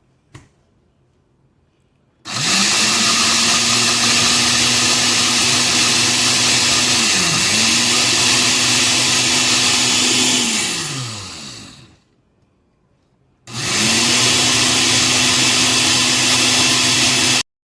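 Countertop blender grinding Flamin' Hot Cheetos into crumbs, running in two bursts. The first lasts about nine seconds: the motor pitch dips briefly partway through, then it winds down. The second lasts about four seconds and cuts off suddenly.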